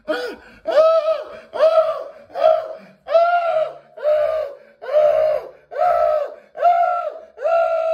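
A high-pitched voice wailing without words: about nine drawn-out cries, each rising and falling, a little under a second apart, the last one held for about two seconds.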